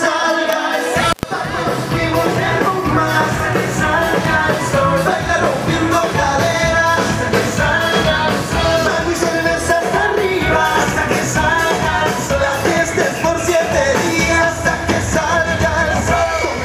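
Loud music with singing, as played for a street dance party. It drops out for an instant about a second in.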